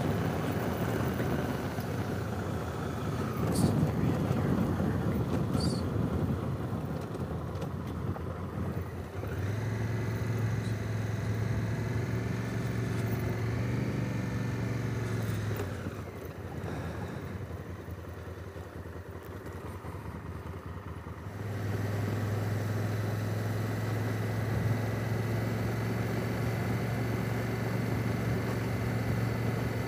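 2017 Honda Africa Twin's parallel-twin engine running under way, with a rushing wind noise strongest over the first several seconds. The engine note holds steady, drops away for a few seconds past the middle, then comes back steady.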